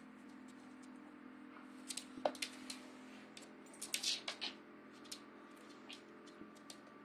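A small dog's claws clicking and tapping on a hardwood floor as it scrambles about, in two quick clusters about two and four seconds in, over a faint steady hum.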